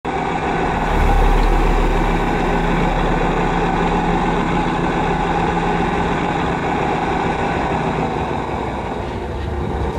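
Self-built radio-controlled 8x8 airport fire truck driving, heard from its own roof: a steady motor drone over a low hum that is strongest about a second in.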